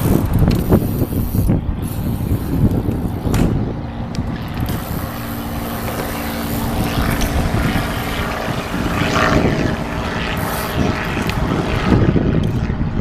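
Wind rumbling on the microphone, with a steady hum running for several seconds in the middle.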